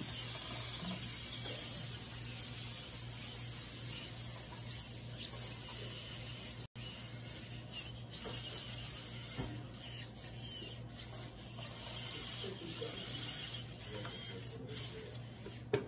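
Small competition robots driving over carpet, their motors faintly whirring and scraping under a steady room hiss and hum, with a momentary dropout about seven seconds in.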